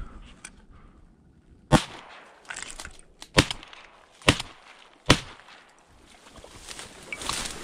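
Four shotgun shots: one about two seconds in, then three more in quick succession, each about a second apart.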